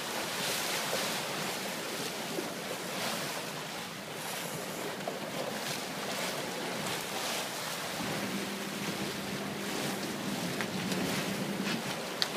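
Sea water churning and rushing in a sport-fishing boat's wake, with wind on the microphone. A steady low hum comes in about two-thirds of the way through and stops shortly before a sharp knock near the end.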